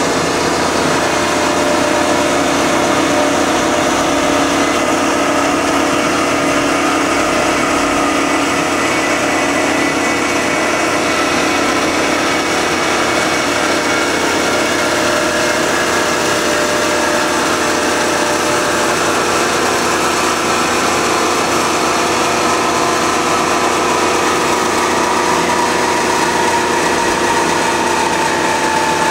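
Marvel 15A/S horizontal band saw running steadily mid-cut, its blade sawing through a tube under hydraulic feed, with several steady tones over a dense hiss.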